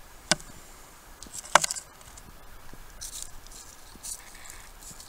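Metal battery-casing pieces being handled and set down on a wooden board: two sharp clicks a little over a second apart, the second louder, with light rustling.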